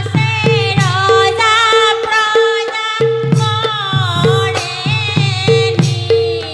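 Women's chorus singing an Assamese devotional song to Shiva together, over a steady drum beat of about three strokes a second, with hand clapping and small hand cymbals.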